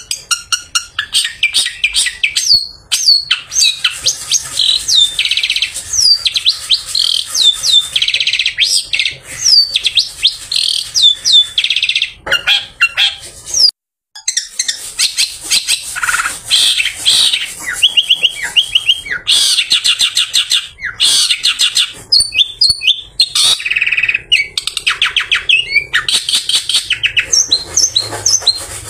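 Long-tailed shrike singing a rapid, varied song of harsh chatter, buzzy trills and quick downward-sweeping whistles, with a brief break about halfway through.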